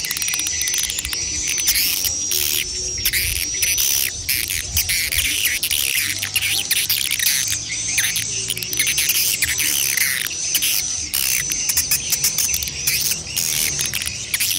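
Swiftlet lure call of adult and chick swiftlets: a dense, continuous twittering of chirps with a high whistled note repeating about every half second to second, over a low rumble.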